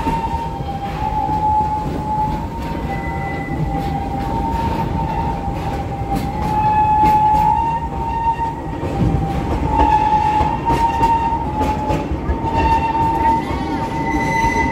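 Narrow-gauge park train coaches rolling along the track: a low rumble from the wheels under a sustained high squeal of wheel flanges on the rails, wavering between two pitches, with fainter higher squeals now and then.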